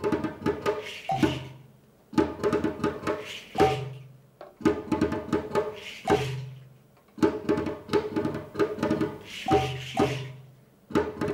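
Djembe and percussion played in repeated short phrases: a quick cluster of hand strikes lasting about two seconds, then a brief pause, over and over, with a low drum tone sounding under several of the phrases.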